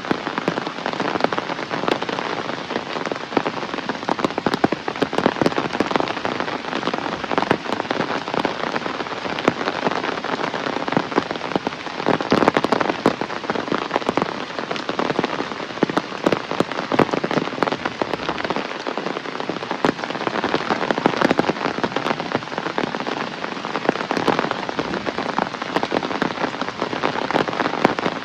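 Heavy rain falling steadily, with a dense patter of many individual drops hitting hard surfaces.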